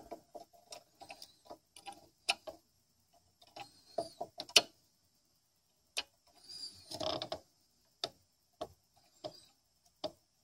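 Irregular small clicks and taps of tweezers and a soldering iron working wires against the player's metal chassis, with a couple of longer scrapes, one about 4 seconds in and one about 7 seconds in.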